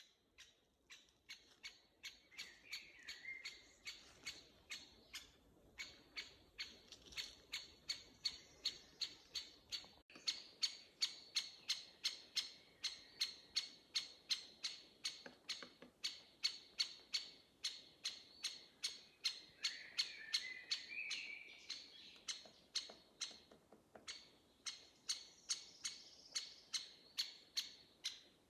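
Birdsong: one bird repeats a short, sharp call note over and over, about two a second, growing louder after the first few seconds. Another bird sings a brief warbled phrase about three seconds in and again about twenty seconds in.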